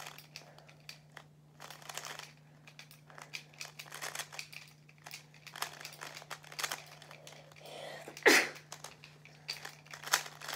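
Plastic speed cube being turned quickly by hand: a stream of irregular clicks and scrapes as its layers turn, the cube tensioned very tight. A louder clack about eight seconds in, over a faint steady low hum.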